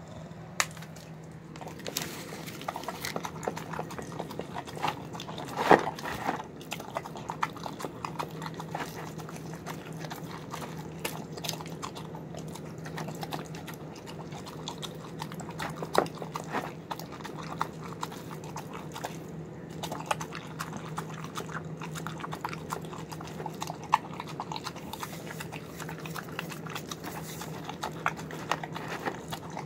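Bulldog eating wet chicken, rice, egg and vegetable food from a plastic bowl: busy wet chewing and smacking, with irregular sharp clicks of teeth and jaws against the bowl.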